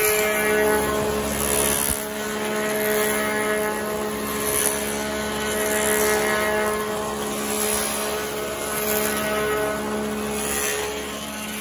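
Copy lathe turning wooden axe handles: its motors run with a steady hum while the spinning cutter wheels rasp against the handle blanks, the cutting noise swelling and easing every few seconds.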